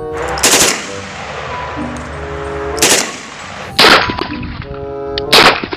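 Four loud single gunshots from real firearms, an AK-type rifle and a pistol, spaced irregularly about one to two seconds apart, each with a ringing tail. Pitched background music plays between the shots.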